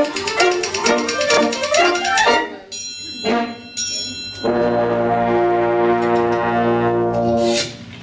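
Brass-led wind band playing a fast passage, then two short accented chords, then a long held closing chord that cuts off shortly before the end.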